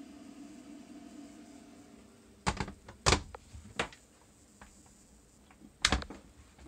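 Wooden cupboard doors and lids in a boat's cabin being opened and shut: four sharp knocks with lighter clicks between them.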